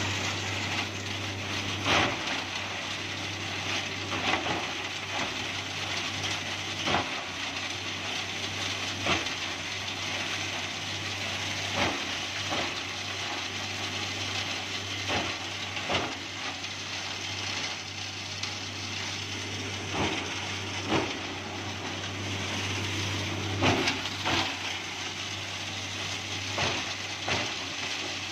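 Three-phase electric coconut husk shredder (VM1000) running under load, with a steady motor hum beneath a constant grinding rush. Sharp knocks come at irregular intervals of two to three seconds as coconut husks are chopped into fibre.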